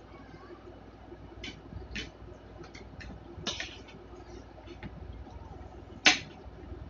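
A metal spoon and fork clinking and scraping against dinner plates, in a series of short sharp clicks with the loudest clink about six seconds in.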